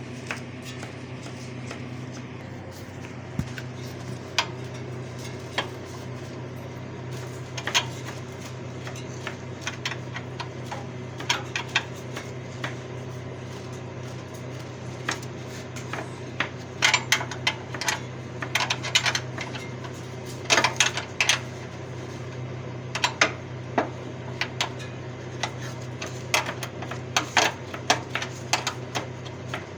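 Hand tools on metal: many sharp clicks and clinks in irregular bursts, busiest in the second half, over a steady low hum.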